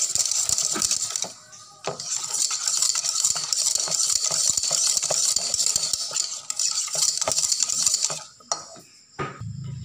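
Wire whisk beating thin martabak batter in a bowl: fast, continuous scraping and clicking of the wires against the bowl, with a brief pause about a second and a half in, and the whisking stops about eight seconds in.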